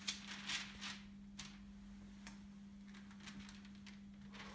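Faint rustles and a few light clicks as a clear plastic sheet and a photo print on mount board are shifted by hand on the bed of a vacuum hot press, mostly in the first second or so, over a steady low hum.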